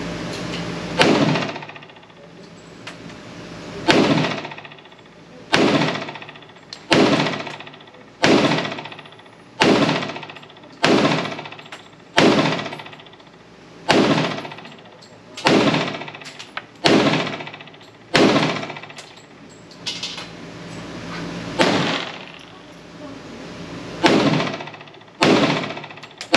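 FN FNX-45 Tactical pistol firing 230-grain .45 ACP in slow, steady aimed fire: about fifteen shots, roughly one every one and a half seconds, each shot trailing off in echo.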